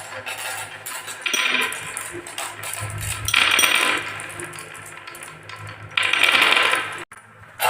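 Marbles rolling and clattering down a HABA wooden marble run, in three rattling bursts about a second and a half, three and a half, and six seconds in.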